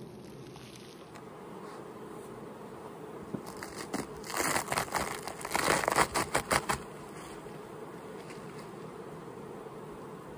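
Honey bees buzzing steadily around an open hive. From about three and a half seconds to nearly seven seconds, a loud run of crackling and tearing as a cover sheet with wax comb built onto it is peeled off the frame tops.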